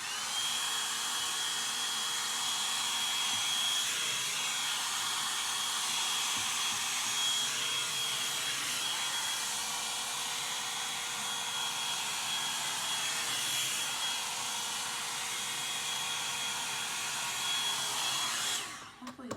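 Revlon One Step hair dryer brush running: a steady rush of blown air with a thin high motor whine. It spins up at the start and switches off shortly before the end.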